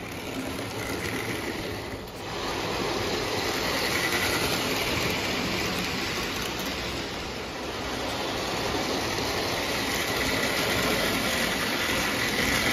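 Lionel 226E prewar O gauge steam locomotive and its freight cars running on three-rail tinplate track, a steady rumble of wheels and motor that gets louder about two seconds in as the train comes close. The locomotive runs very smooth after its repair.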